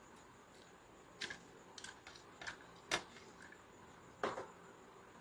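Light clicks and taps of a laptop motherboard and its cooling fan being handled and fitted together with gloved hands: about five scattered knocks, the sharpest about three seconds in and just after four seconds.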